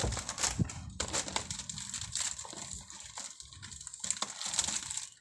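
Large plastic snack bag crinkling and rustling as a hand rummages inside it, a run of irregular crackles that thins out about halfway through.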